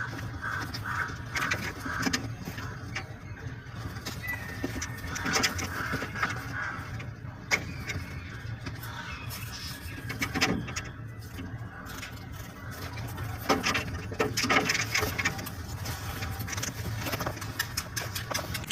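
Birds calling in short repeated notes over a steady low hum, with scattered sharp clicks.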